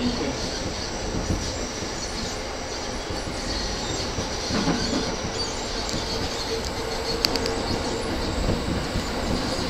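Running noise heard inside an E231-series commuter train's cab car (KuHa E231-8030): a steady rumble of wheels on rail, with a faint steady whine in the second half as the track curves. A few sharp clicks come about seven seconds in.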